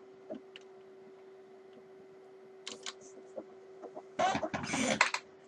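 A grommet being pressed into a guitar by hand: a short scrape near the middle, then a louder cluster of rubbing, squeaking and clicks about four seconds in, over a steady low hum. The grommet is firm and needs force to go down.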